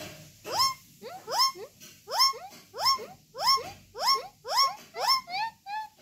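Rose-ringed parakeet (Indian ringneck) calling over and over in a steady rhythm: a short rising squawk roughly every half second to three quarters of a second, each followed by a softer short note. The last couple of calls are softer.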